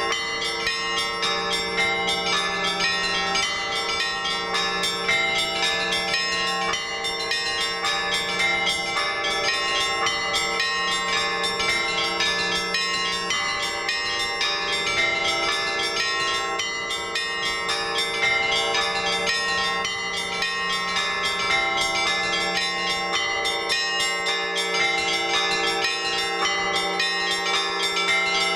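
Orthodox church bells rung together in a festive peal (trezvon): quick strokes on the small bells over the steady ringing of the larger bells, without a break.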